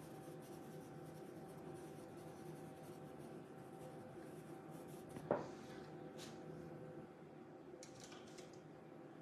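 A CarbOthello pastel pencil lightly shading on Pastelmat paper: a faint dry scratching over a steady low room hum, with one sharp click about five seconds in.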